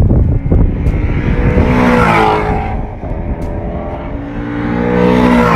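Ford Mustang Shelby GT350's 5.2-litre flat-plane-crank V8 at full throttle as the car runs down the track past the pit wall, its pitch climbing about two seconds in and again near the end.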